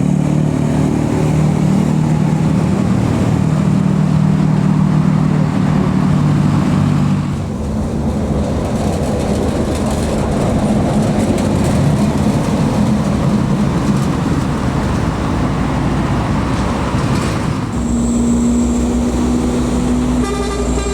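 Tour buses and other heavy traffic passing on an uphill road: a loud diesel engine drone for the first seven seconds gives way to steadier road and tyre noise, with a steady engine tone coming in near the end.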